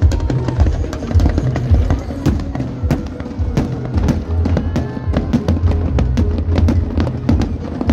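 Fireworks display: a rapid run of sharp bangs and crackles over loud music with a heavy bass.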